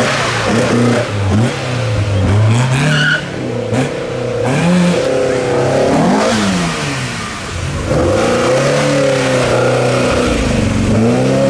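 Classic Ford car engine revving hard again and again, its pitch rising and falling several times, with tyres spinning in a burnout.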